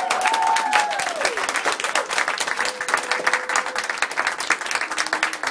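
A small audience applauding, many hands clapping fast and unevenly.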